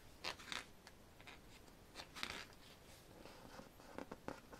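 Faint rustling of paper as the pages of a photo book are turned by hand, in two soft swishes about two seconds apart, with a few light taps near the end.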